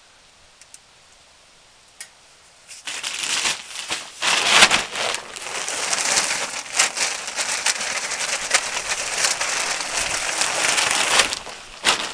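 A plastic bag of soil mix crinkling as it is tipped up and its contents pour into a plastic tub, a dense crackling hiss that starts about three seconds in and stops shortly before the end.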